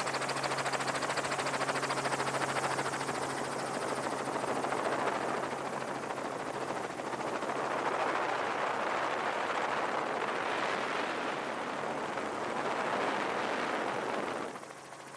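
Loud steady engine noise with a rapid chopping pulse, cutting off sharply near the end.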